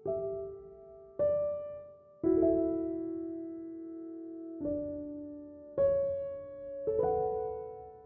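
Background music: slow, gentle piano, single notes and chords struck about once a second and left to ring out.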